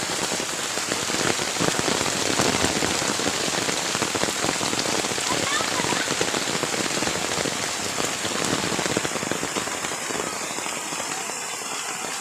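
Steady rain falling, a dense patter of drops that thins a little near the end.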